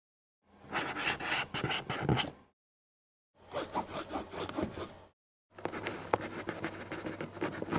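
Scratchy scraping and rubbing, like a pen or brush scribbling, in three bursts of about two seconds each with abrupt stops and dead silence between them.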